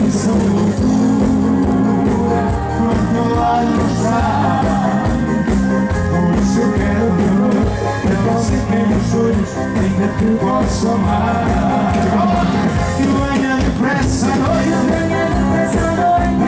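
A live band playing, with women singing into microphones over drums and band backing.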